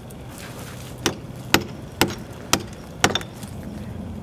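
Hammer striking a chisel against the solid concrete fill of a concrete block wall, five sharp metal-on-concrete blows about two a second starting about a second in, chipping out a hole through the block.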